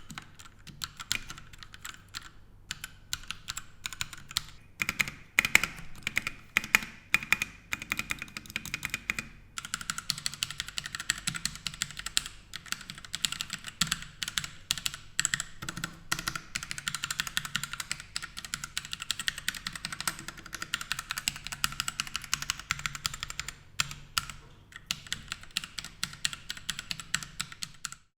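Royal Kludge RK100 mechanical keyboard with linear red switches and ABS keycaps being typed on: a fast, continuous stream of keystroke clacks that stops abruptly near the end.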